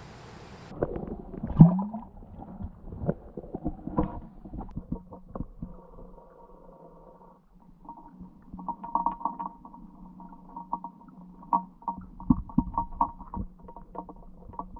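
Muffled underwater sound, as picked up by a camera on the lakebed. About a second and a half in there is a loud thud with a brief gurgling sweep, then scattered clicks and knocks over a faint steady hum.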